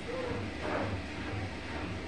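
Bosch Serie 4 front-load washing machine running mid-cycle: a steady mechanical hum from the turning drum and motor, with a brief louder swish a little under a second in.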